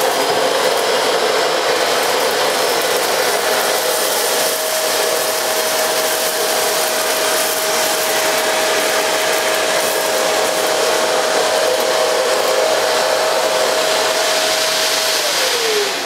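Hoover Telios Eco G bagged cylinder vacuum cleaner running at maximum suction, a steady whine over the rush of air, as its floor nozzle in hard-floor mode is passed back and forth over dry debris on a tiled floor. Near the end it is switched off and the whine falls in pitch as the motor winds down.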